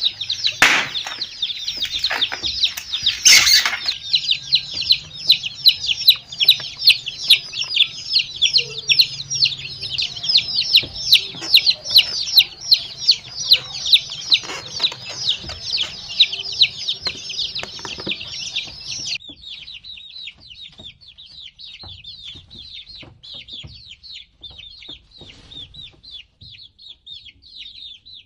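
A group of baby chicks peeping nonstop, many short falling chirps overlapping, with a few knocks in the first few seconds. About two-thirds of the way through the peeping suddenly drops to a quieter level and carries on.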